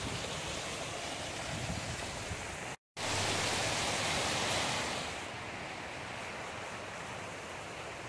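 Steady rushing of a mountain stream and its small cascades, an even hiss. It cuts out for an instant about three seconds in and comes back louder, then turns quieter and duller about five seconds in.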